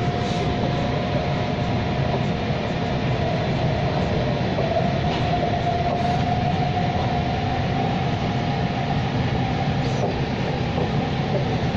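SMRT C651 electric train running on the rails: a steady rumble of wheels and carriage, with a held whine from the traction equipment that wavers in pitch around the middle and fades near the end.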